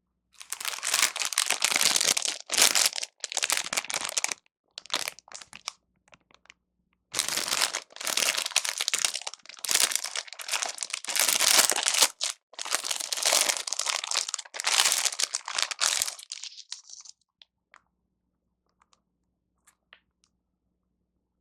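Plastic food wrapper being crinkled and torn open in a series of irregular bursts, going quiet about two-thirds of the way through apart from a few faint clicks.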